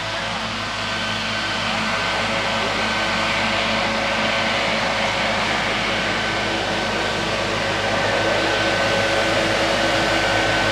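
Steady machine noise, like a motor or blower running, with a few steady whining tones in it, slowly growing a little louder.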